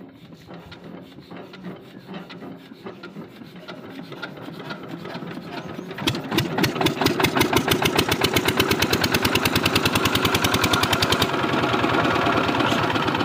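A 3 hp single-cylinder diesel water-pump engine being spun by its hand crank, the rhythmic chuffing growing louder and faster. About six seconds in it fires and settles into a loud, steady, rapid exhaust beat.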